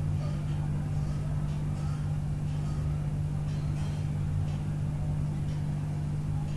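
A steady low hum, with a few faint light taps.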